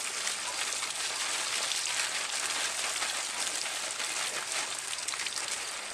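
Garden hose spraying water onto a person, a steady hiss with fine spattering where the stream lands.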